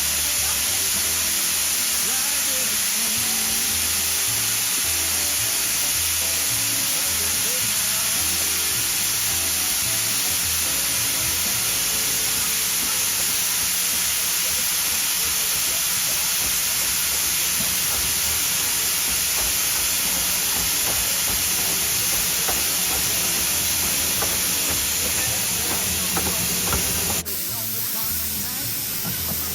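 Loud steady hiss with music playing underneath; the sound changes abruptly near the end.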